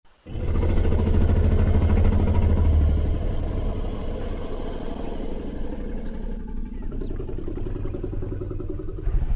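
Dinosaur growl sound effect: a long, low rumbling growl with a fast rattle, strongest in its first few seconds and easing off a little after.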